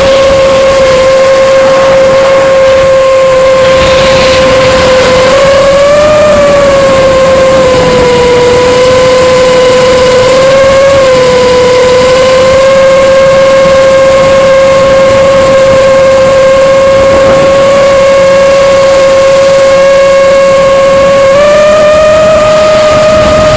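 5-inch FPV quadcopter's brushless motors and propellers whining at a steady pitch. The pitch rises briefly twice and steps up slightly near the end.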